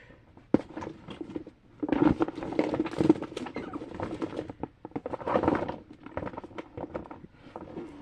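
Small fidget toys being rummaged and handled in a drawer: a busy clatter of quick clicks and scrapes, in two main spells.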